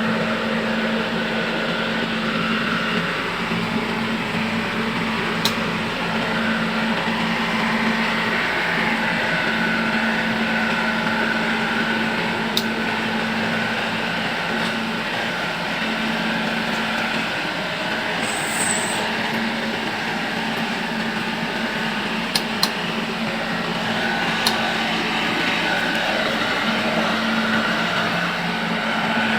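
Rice combine harvester running steadily: a constant engine and machinery hum, with a few sharp clicks.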